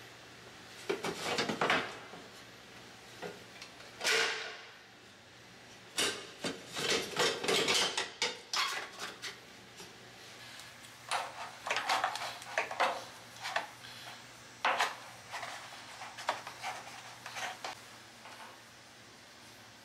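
Irregular clanks, clicks and rattles of hands handling hard metal parts and tools, in several clusters with short pauses between them.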